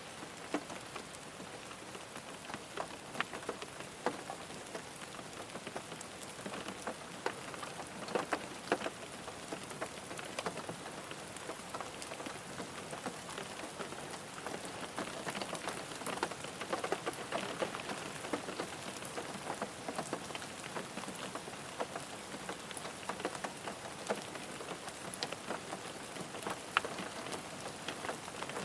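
Steady rain falling on a car, a constant patter with many separate drops ticking sharply on the body.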